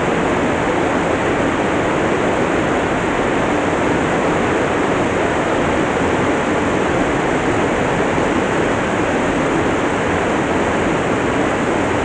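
Loud, steady rush of a large waterfall in heavy flow.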